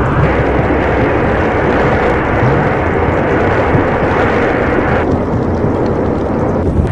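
Volcanic eruption on La Palma giving a loud, continuous, deep rumbling roar. The higher part of the sound drops away suddenly about five seconds in.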